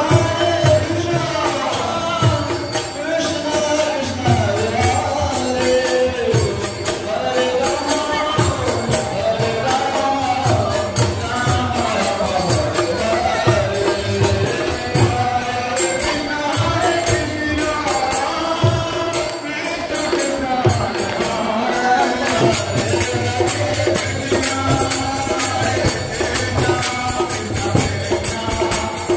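Devotional kirtan: a group of voices singing a chant over steadily struck hand cymbals (kartals) and a drum beat.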